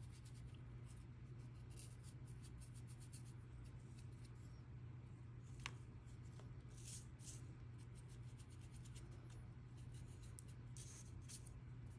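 Faint scratchy dabbing of a brush working weathering dust onto small plastic model tank road wheels, over a steady low hum. One light click about six seconds in.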